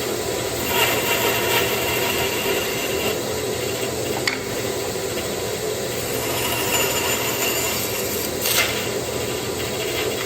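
Power saw running steadily while cutting wood, trimming about an eighth of an inch off the length of a workpiece.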